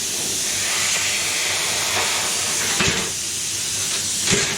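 Steady, harsh hiss of metalworking on a steel car body panel, with two short knocks, near the middle and near the end.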